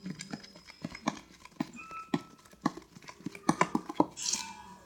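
A spoon stirring thick homemade slime of glue and Tenys Pé activator in a bowl: irregular clicks and knocks as the spoon hits the bowl, with a short hiss a little after four seconds in.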